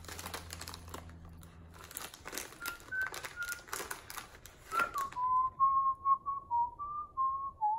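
A crinkly plastic snack wrapper being torn open and handled. A man whistles a simple tune in short held notes alongside it, growing clearer after about five seconds as the crinkling stops.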